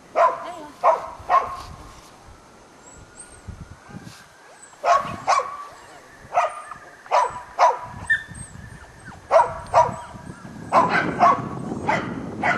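Cardigan Welsh corgi barking: a dozen or more short barks in twos and threes, starting right away, pausing for a few seconds, then coming again more often towards the end.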